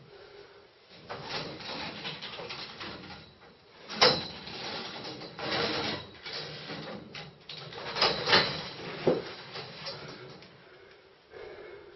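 Steel scaffolding tubes creaking, rubbing and knocking as a person swings and climbs on them. There is a sharp metal knock about four seconds in and a cluster of knocks around eight to nine seconds in, and the first of these ring briefly.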